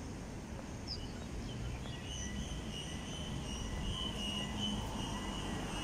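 Street traffic ambience: a steady low rumble, with a thin high whine joining about two seconds in and holding to the end.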